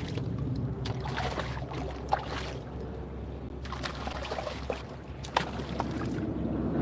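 Wind and water lapping around a kayak, with a few faint clicks and knocks and a short burst of splashy noise about midway.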